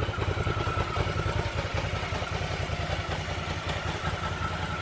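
Hyosung GV650's V-twin engine idling steadily with an even, low pulsing beat.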